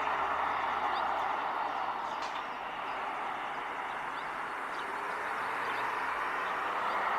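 Steady rushing of water from a small stream waterfall, swelling a little louder near the end.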